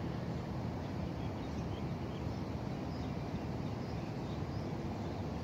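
Steady outdoor background noise, mostly a low rumble, with a few faint bird calls.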